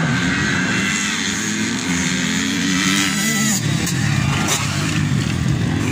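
Several motocross dirt bike engines revving hard as the bikes race past. Their overlapping engine notes rise and fall in pitch through the gears.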